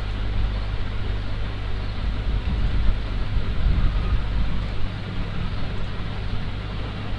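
Steady low background rumble with a constant electrical hum and no distinct events.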